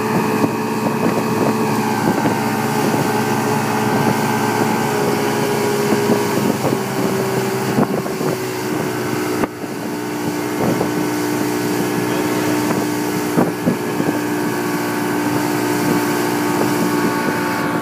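Motorboat engine running steadily at speed, with wind on the microphone and occasional knocks. The engine note drops a little about halfway through.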